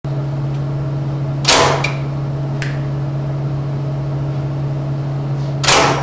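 Steady low machine hum with two short, loud, hissing bursts about four seconds apart.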